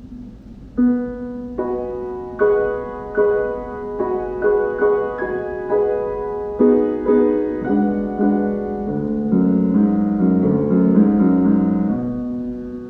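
Solo piano playing a slow introduction to a song. Single notes are struck and left to ring, the first about a second in, then fuller chords in the lower register through the second half.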